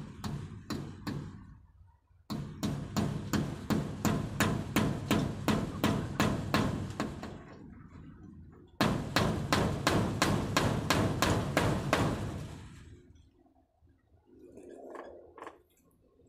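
Rapid, regular knocking from hand work on the wooden rabbit-pen frame, about four strokes a second, in two runs with a short pause between; it stops about twelve seconds in.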